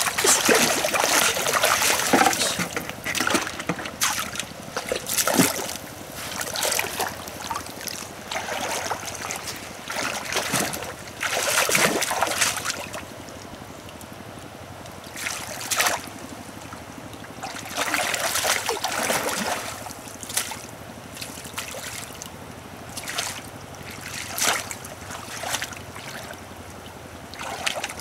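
Shallow muddy water splashing and sloshing as a woven basket scoop is plunged in and lifted out, with water trickling back out through the mesh. It comes in irregular bursts with quieter gaps between.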